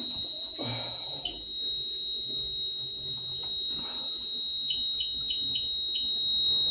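Apollo fire alarm sounder giving one continuous, steady high-pitched tone during a fire alarm test, with a few short chirps about five seconds in.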